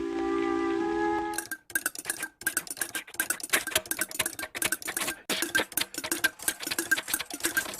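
A musical chord holds briefly. About a second and a half in it gives way to a rapid, irregular mechanical clatter of sharp clicks with a small recurring ping, a cartoon sound effect.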